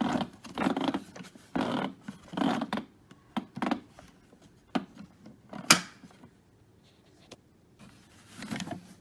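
Handling sounds: rustling and scraping for the first few seconds, then scattered clicks and knocks, the loudest a single sharp click a little before six seconds in.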